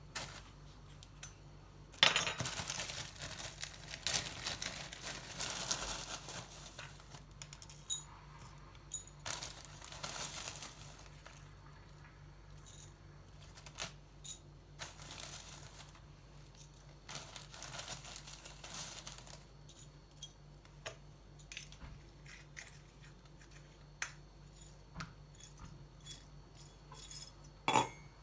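Everyday handling sounds in a small room: stretches of rustling and crinkling, with scattered light clicks and clinks of small hard objects, over a faint steady hum.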